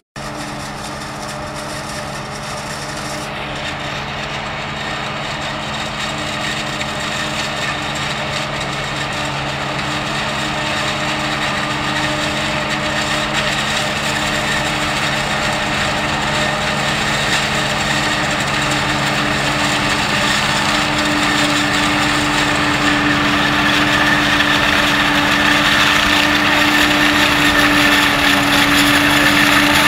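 New Holland FR 9090 self-propelled forage harvester chopping standing maize: a steady machine drone with a few held low tones, growing steadily louder as it comes closer.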